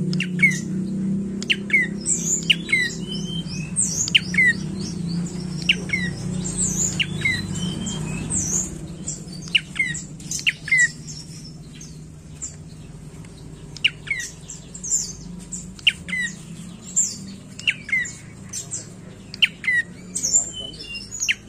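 Dark-necked tailorbird calling: a string of short, sharp, high notes that sweep down in pitch, about one or two a second. A low hum lies under the calls for the first half.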